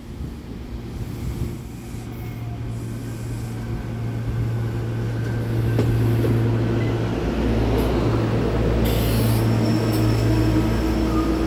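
SEPTA Silverliner V electric multiple-unit train pulling in alongside the platform. It grows louder over the first six seconds, then holds a steady rumble with a low hum and a few steady tones. A short hiss comes about nine seconds in.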